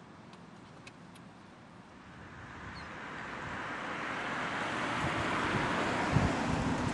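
A gust of wind: a rushing noise that builds steadily over several seconds, with wind buffeting the microphone near the end.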